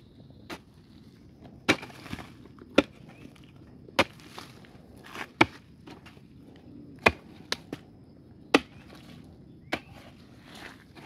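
A hoe chopping into hard-packed earth while digging out a termite nest: about ten sharp strikes at an irregular pace of roughly one a second.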